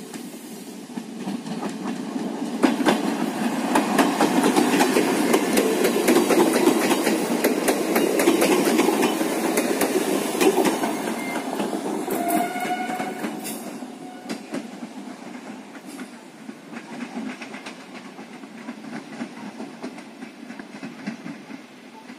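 A Pesa 730ML diesel multiple unit passing close by. The rumble of train and wheels builds over a few seconds and then fades as it moves away, with wheels clicking over rail joints while it is nearest. A short high-pitched tone sounds about halfway through.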